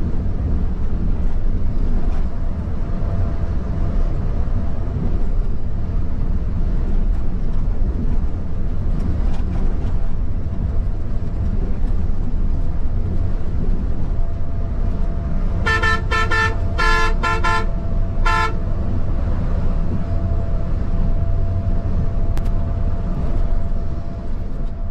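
Bus running on the road: steady engine and road rumble, with a faint steady whine. About sixteen seconds in, a horn sounds a quick run of five or six short blasts.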